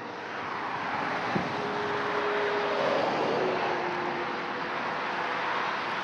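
A steady rushing noise that slowly swells, peaks about three seconds in and eases off, with a faint hum that drops in pitch at the peak, as a vehicle passes by. A light knock about one and a half seconds in.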